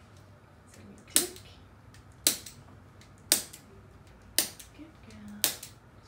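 Chiropractic activator adjusting instrument clicking five times, about once a second, as its spring-loaded tip is fired against a baby's lower back to release tension there.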